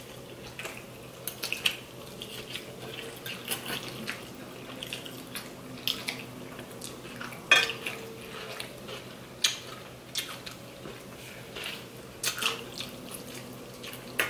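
Eating sounds: chewing and lip smacks on fettuccine Alfredo and sauce-soaked bread, with forks tapping and scraping on the plates. Scattered short clicks, the sharpest about seven and a half seconds in.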